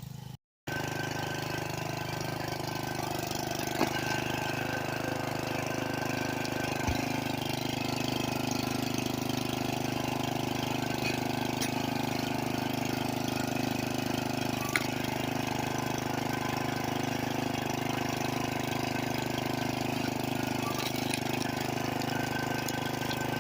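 Two-stroke chainsaw engine idling steadily, with an even, unchanging tone.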